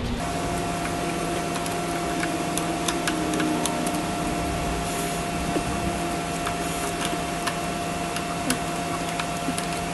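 Steady workshop hum with a thin held whine, and a few faint small metal clicks from pliers working cotter pins out of a golf cart's tie rod ends.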